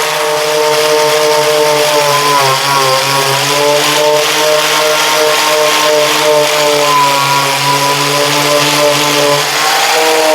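Angle grinder grinding rust off a thick steel block clamped in a vise: a loud steady motor whine over a harsh grinding hiss, the pitch sagging briefly a couple of times, about two and a half seconds in and near the end.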